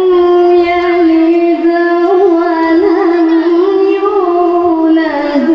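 A young qari chanting a Quran recitation (tilawah) in a melodic style. He holds one long note with small wavering ornaments, and the pitch dips briefly near the end before the chant carries on.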